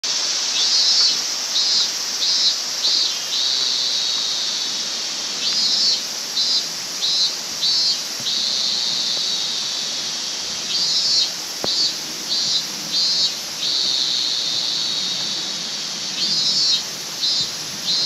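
High-pitched outdoor animal calls repeating in phrases: four or five short chirps, then a longer held note, about every five seconds. A steady rushing hiss runs underneath.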